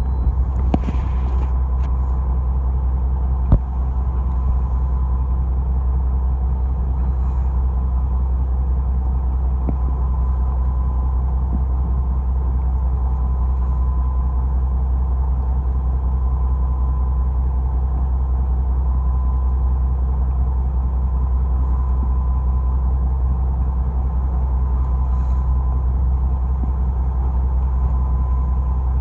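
A fishing boat's engine running steadily: a constant low hum with a thin steady whine above it. A single sharp knock about three and a half seconds in.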